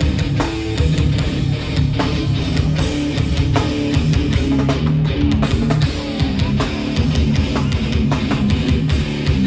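Hardcore band playing live at full volume: heavy distorted electric guitars and bass over a pounding drum kit.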